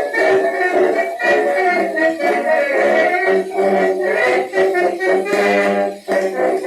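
Brass band playing a march, reproduced from a 78 rpm shellac record; the sound is thin, with almost no deep bass.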